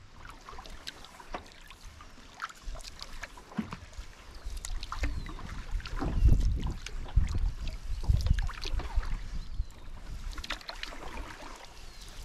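A canoe being paddled in the rain: many small splashes and dripping ticks of water around the hull, with two louder low thumps about six and eight seconds in.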